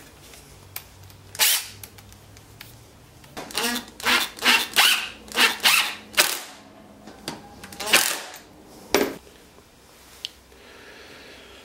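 A series of sharp knocks and clacks from small wooden parts and hardware being handled and set down while being assembled. The strikes are bunched in a quick run through the middle, with a few single ones before and after.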